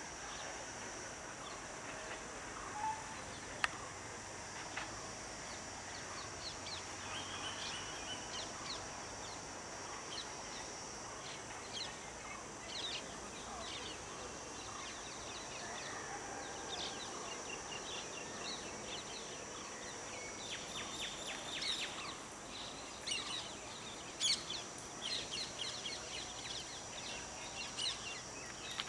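Birds chirping and calling over a steady high hiss of rural background ambience, the calls coming thicker in the second half.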